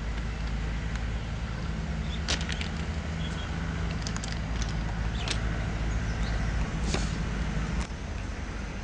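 Steady low outdoor rumble of wind on the microphone, with a faint drone through the middle and a few sharp clicks and crunches of footsteps on the stone ballast of a railway track.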